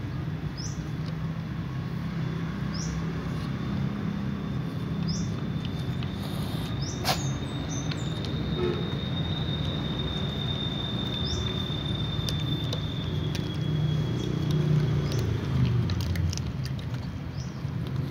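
Cats crunching dry kibble, heard as scattered small clicks over a steady low rumble. A short high chirp comes every couple of seconds, and a thin steady whine is heard for a few seconds in the middle.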